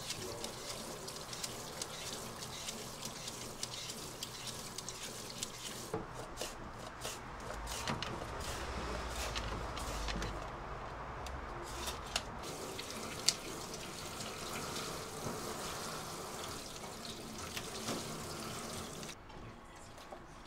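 Liquid sounds over a steady background noise, with frequent small clicks and knocks, and a low rumble swelling for a few seconds around the middle.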